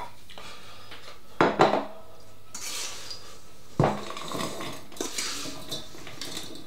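A kitchen utensil knocking and scraping against a mixing bowl and saucepan as a sticky fruit mincemeat mixture is scooped from the bowl into the pan. There are two sharp knocks about a second and a half in and another near four seconds, with scraping between and after them.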